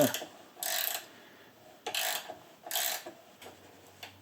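A ratchet wrench clicking in three short bursts, turning a 12 mm nut on an exhaust manifold stud.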